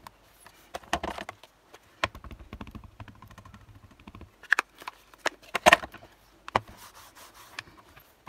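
Stamping handling sounds: a string of knocks and taps from clear stamps, an ink pad and a stamping platform. There is a softer rattling between about two and four seconds in, and the loudest knock comes about five and a half seconds in.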